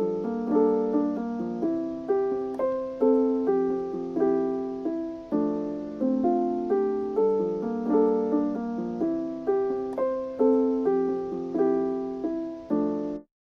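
Background piano music: a steady run of struck, decaying notes over sustained chords, which cuts off suddenly near the end.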